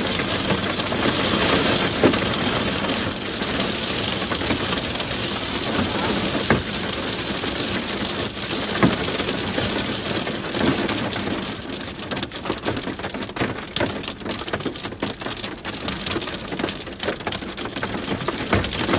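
Hail and rain drumming on a car's roof and windows, heard from inside the cabin. It starts as a dense, steady clatter and thins out after about twelve seconds into separate sharp hits.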